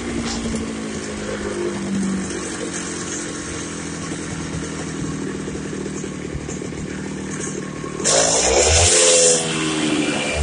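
Stihl TS 760 two-stroke concrete cut-off saw running steadily. About eight seconds in it turns suddenly louder, with a harsh hiss and the engine pitch swinging, then eases off near the end.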